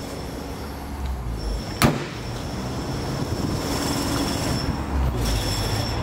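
Mercedes-Benz A-Class engine idling steadily, heard with the bonnet open, with one sharp click about two seconds in.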